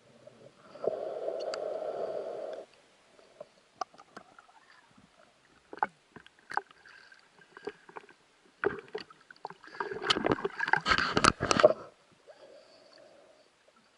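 Muffled underwater water noise picked up through a camera housing during a spearfishing dive. A steady rushing, gurgling sound starts about a second in and lasts nearly two seconds, followed by scattered sharp knocks. Near the end comes a dense, loud stretch of gurgling and knocking lasting about two seconds.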